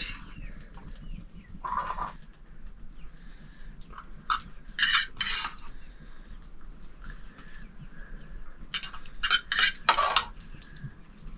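Chickens clucking while metal pots and utensils clatter in short, scattered bursts, the loudest cluster about nine seconds in.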